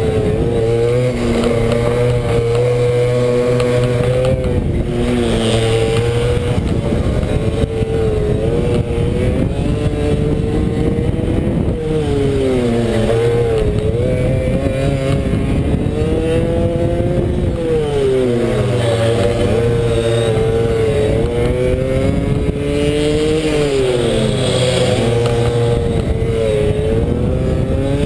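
Pit bike engine at race pace, heard on board. Its pitch holds high on the straights, drops several times as the rider backs off for the corners, and climbs again as he accelerates out.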